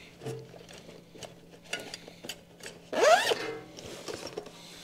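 Zipper on a soft fishing-rod case being worked closed in short rasping pulls, with one quicker, louder zip about three seconds in that rises in pitch, amid light handling of the case.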